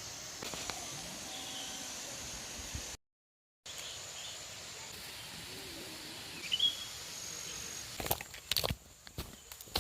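Outdoor nature ambience: a steady background hiss with a few brief bird chirps. The sound drops out completely for a moment about three seconds in, and a few footstep-like knocks come near the end.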